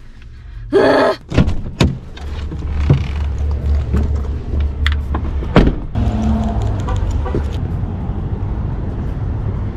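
Getting out of a pickup truck: clicks and knocks as the driver's door is opened, then the door shut with a sharp bang about halfway through. Low wind rumble on the microphone once outside.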